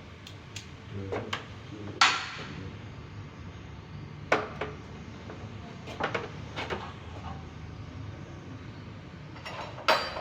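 A few sharp metallic clanks and knocks with a short ring, spread out about two seconds apart, as of metal parts or tools being handled and set down, over a low steady hum.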